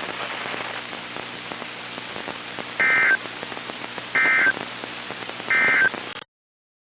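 NOAA Weather Radio broadcast heard through a receiver: a steady hiss of radio static, then three short, identical bursts of SAME digital data tones about 1.4 seconds apart. These are the EAS end-of-message code that closes the weekly test. The audio cuts off abruptly near the end.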